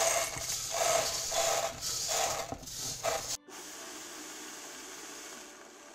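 Roasted pearled barley grains poured from a metal bowl into a clear plastic Vitamix blender pitcher, a rushing patter of grains in several surges. It cuts off about three and a half seconds in, leaving a quieter steady hiss.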